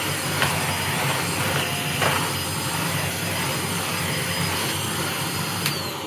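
Bissell Featherweight corded stick vacuum running steadily on carpet, picking up powder, with a few sharp clicks. Near the end it is switched off with a click and its motor whine falls away.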